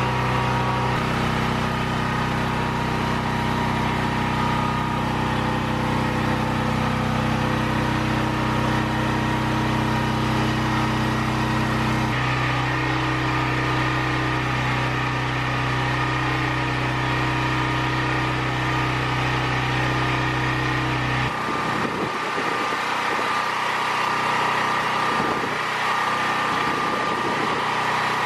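Portable generator's small engine running steadily at constant speed under a hiss of rain. Its low hum shifts abruptly twice and falls away about three-quarters of the way through.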